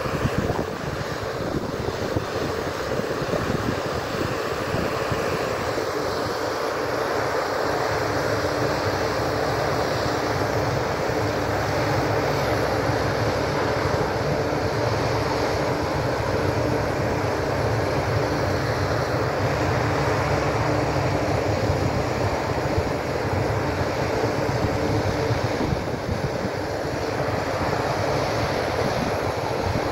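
Water-well drilling machinery running steadily while a jet of water and air gushes up out of the freshly drilled borehole, a continuous mix of engine hum and rushing water.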